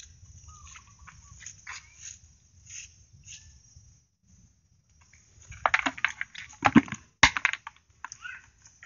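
Mesh fish trap being handled and emptied into a plastic bucket: nylon netting rustling with scattered light clicks, then a louder run of knocks and rustling from about five and a half to seven and a half seconds in as the catch is shaken out of the net's tail into the bucket.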